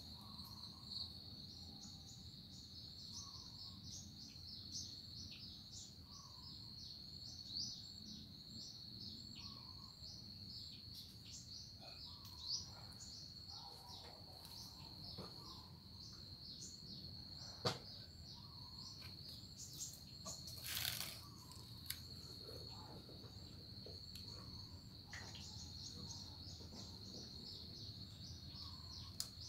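Insects trilling: a steady high-pitched buzz with a quick repeated chirp over it. A single sharp click comes past the middle, and a brief rustle follows a few seconds later.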